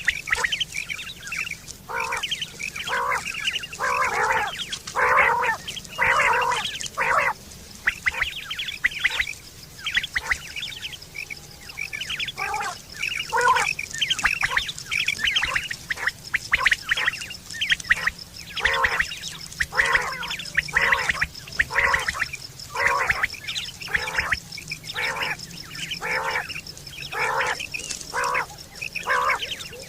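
Quail calling: a long run of short, quickly repeated calls, thinning out for a few seconds partway through, over a faint steady high-pitched hum.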